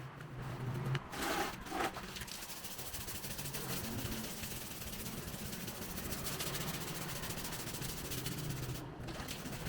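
A steady hiss over a low hum, with two louder rushes between about one and two seconds in.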